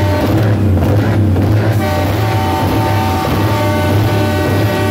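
Truck air horns sounding a loud, sustained multi-note chord. The higher notes break off about half a second in and come back just before two seconds.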